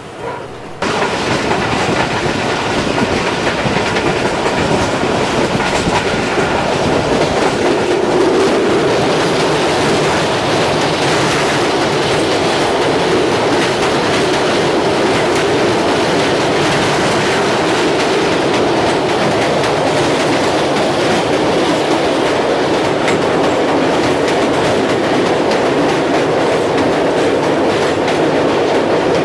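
Passenger train running at speed across a steel truss bridge, heard from an open coach doorway: a loud, steady rumble and clatter of wheels on rails that jumps up about a second in and then holds level.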